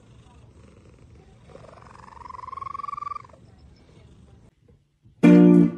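Long-haired cat purring while being stroked, with one long, slowly rising meow about one and a half seconds in. Near the end a loud short cry cuts in.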